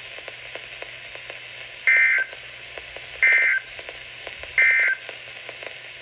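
Three short bursts of digital data tones, about a second and a half apart, from a Midland weather alert radio's speaker: the NOAA Weather Radio EAS/SAME end-of-message code marking the end of the severe thunderstorm warning. Faint radio hiss between the bursts.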